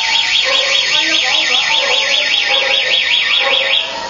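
An electronic alarm sounding a rapid high-pitched warble, rising and falling about eight times a second, which cuts off near the end.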